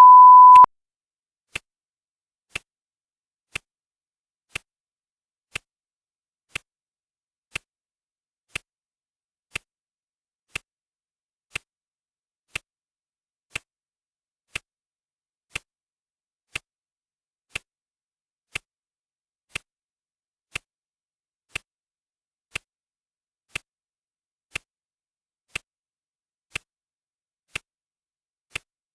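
Clock ticking steadily, one tick a second, with a short beep at the very start, a single steady tone of about half a second that marks a full minute on the countdown timer.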